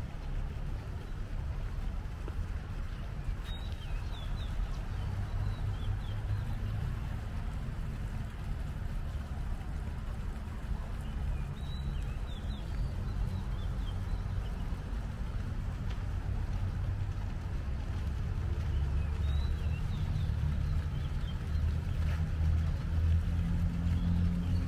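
Steady low rumble of city traffic, with a few short bird chirps now and then.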